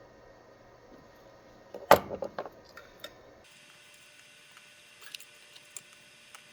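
A sharp click about two seconds in, followed by a quick run of lighter clicks and taps, then a few faint ticks: a small plastic connector and circuit board being handled on the bench.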